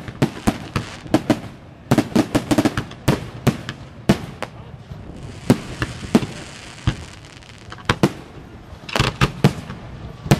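Fireworks display: aerial shells bursting overhead in a rapid string of sharp bangs. The bangs thin out in the middle, where a steady hiss takes over, then come again in a quick cluster near the end.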